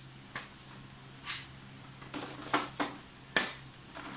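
Several sharp plastic clicks and taps as hands handle an Epson L360 printer's casing and scanner lid. The loudest is a bit past three seconds in.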